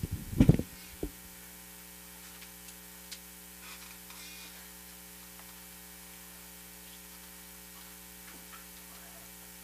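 Steady electrical mains hum from a band's amplified stage gear, with a loud knock about half a second in and a lighter one just after.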